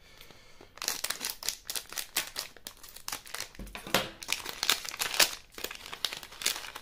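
Plastic wrapper of a candy-and-card packet crinkling and tearing as it is worked open by hand, in rapid dense crackles that start about a second in.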